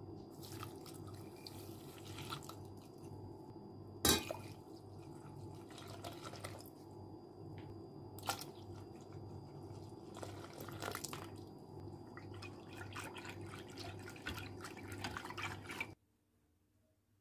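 Milk being poured into a stainless steel pot over egg yolks, sugar and starch, splashing and trickling, with a few sharp knocks along the way. The sound stops abruptly about a second before the end.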